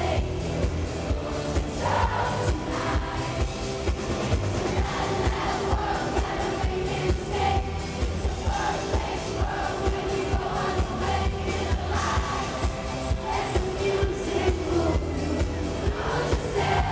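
Live pop concert: a female singer singing into a microphone over a full band with a steady drum beat and electric bass.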